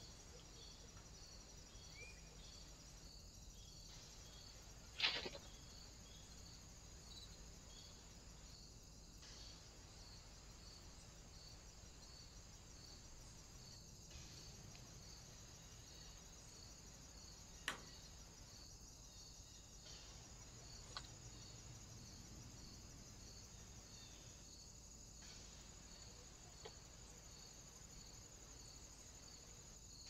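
Faint insect chirring: a steady high buzz with a regular pulsing chirp about twice a second. A few short sharp clicks or knocks sound over it, the loudest about five seconds in.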